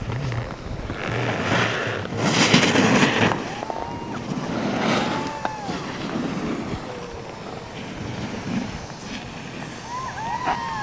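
Alpine snowboard carving past on hard-packed snow, the edge scraping in a loud rush about two seconds in, with a fainter pass about five seconds in. Distant voices call out with rising and falling whoops, most near the end.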